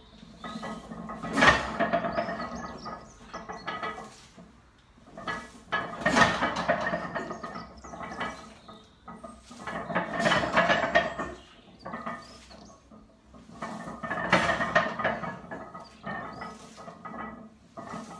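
Heavily loaded barbell in rack pulls, set down on the power-rack pins and pulled off again. The weight plates clank and rattle with a brief metallic ring, once every four seconds or so, four times.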